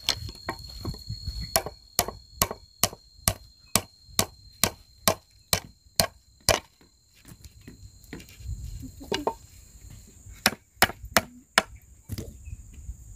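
Claw hammer driving nails into a wooden board: a quick, even run of strikes, about four a second, for several seconds, then a pause and a few more blows near the end.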